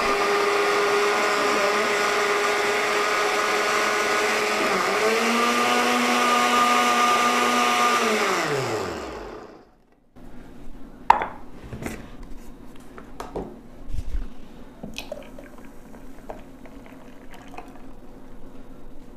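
Electric countertop blender grinding melon chunks in water: the motor runs steadily, steps up in pitch about five seconds in, then winds down with a falling pitch and stops about halfway through. After it stops come scattered clicks and knocks as the lid is taken off and the jar is handled.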